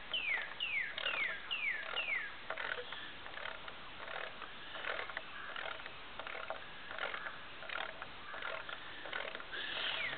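Young chicken peeping: a run of high chirps, each sliding down in pitch, about three a second in the first couple of seconds, then scattered faint clicks and rustles.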